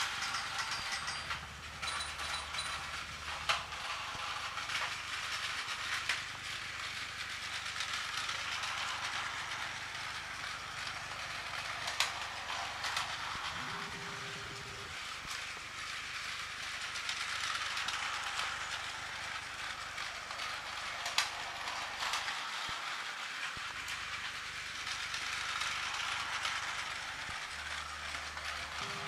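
Several battery-powered Plarail toy trains running on plastic track: a steady whirring and rattling of their small motors and gears that swells and fades as trains pass close, with a few sharp clicks.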